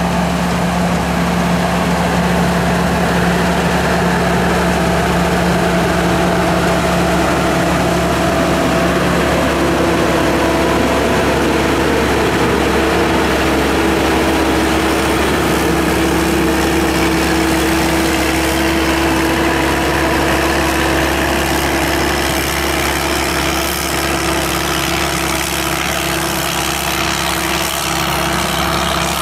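SAK KM-D combine harvester running steadily on its turbocharged 260-horsepower engine, a loud even machine drone whose pitch shifts slightly about a third of the way in.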